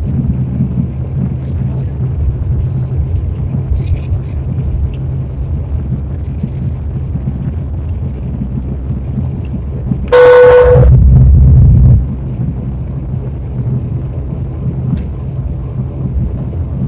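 Steady low rumble inside the cabin of an Airbus A320-family jet taxiing after landing. About ten seconds in, a sudden loud pitched tone sounds for under a second, followed by about a second of much louder rumble.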